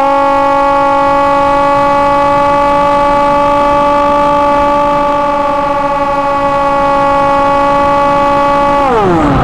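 Hawk Sky RC plane's electric motor and propeller whining close to the onboard camera, held at a steady speed, then winding down in pitch near the end as the throttle is eased off.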